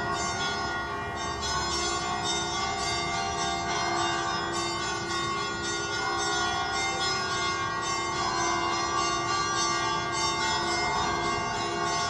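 Church bells pealing, struck in quick succession with many tones ringing over one another in a continuous wash, rung at midnight to mark Easter.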